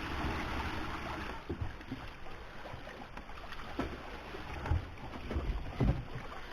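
Boat under way at sea, a steady rushing noise with wind on the microphone and a few low thumps.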